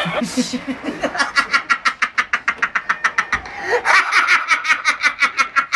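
Laughter in rapid, even "ha-ha" pulses, about six a second, in two long runs with a short break about three seconds in.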